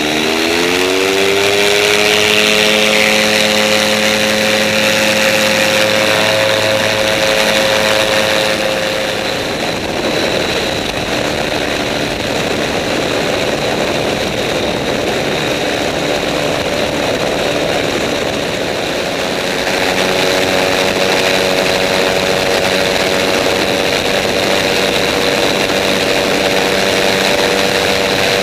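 Rotax 912 engine and pusher propeller of an ultralight amphibious trike powering up, its pitch rising over the first couple of seconds, then running steadily at high power in flight. Wind rush over the wing-mounted microphone is heavy throughout and drowns out most of the engine tone for a stretch in the middle.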